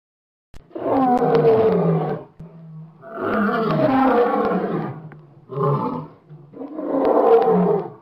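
Male lion roaring: four roars after about half a second of quiet, the second the longest at about two seconds, the third short, with a low steady rumble in the gaps after the first two.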